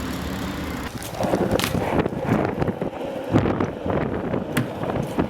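BMX bike riding on pavement: tyres rolling with a rough scraping noise and scattered sharp clicks and knocks. A steady low hum comes first, before the rolling noise sets in about a second in.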